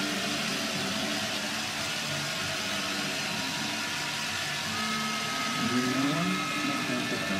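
Large stadium crowd of spectators at a biathlon range, a steady roar of cheering with some held tones in it, growing a little louder with wavering voices about five and a half seconds in.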